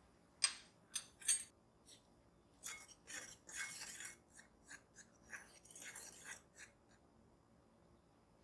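Wire whisk stirring dry flour, sugar and salt in a glass mixing bowl. A few sharp clinks of the whisk against the glass come in the first second and a half, then a run of scratchy swishing strokes through the dry flour, stopping about seven seconds in.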